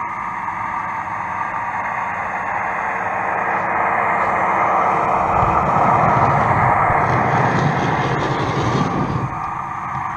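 A model train running along the layout's track, its wheels and motor growing louder as it comes closer. The sound drops away suddenly about nine seconds in.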